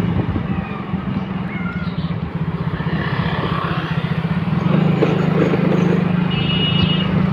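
Small motorcycle engine running steadily at low road speed, heard from the rider's seat. It gets a little louder about two-thirds of the way in.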